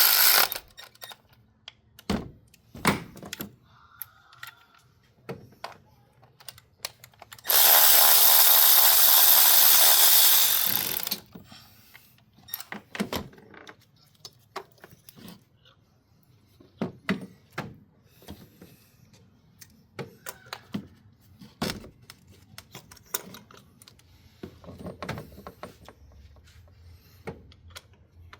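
A handheld power tool runs in one steady burst of about four seconds, a little after the first quarter. Scattered clicks and knocks of hand tools and metal parts being handled fill the rest.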